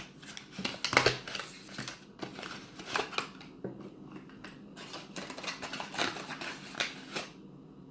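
Plastic toy packaging being handled and torn open by hand: irregular rustling and sharp clicks and crackles of wrappers and capsule parts, thinning out near the end.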